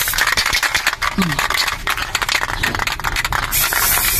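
Aerosol spray-paint can hissing as red paint is sprayed, uneven and in spurts at first, then a steadier spray for the last moment.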